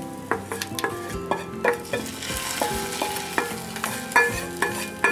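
Hot ghee-and-oil tempering with mustard seeds and curry leaves sizzling and crackling as it is poured from a small pan onto rasam rice; the sizzle swells about two seconds in. Instrumental music plays underneath.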